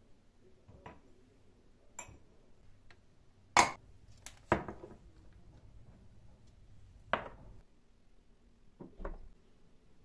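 Glasses, jars and a bottle being set down on a granite countertop: about eight separate knocks and glassy clinks, the loudest about three and a half seconds in.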